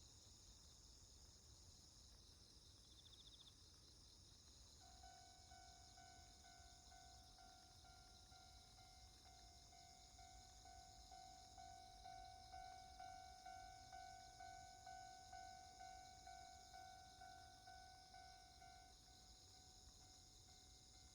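Railway level-crossing alarm ringing a steady pitched tone about twice a second. It starts about five seconds in and stops near the end, over crickets chirping.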